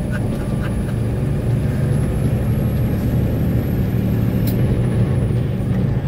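Truck engine running at a steady low drone while driving, with road rumble.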